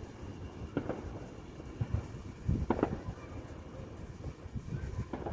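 Fireworks going off: three sharp bangs about two seconds apart over a low rumble, with wind on the microphone.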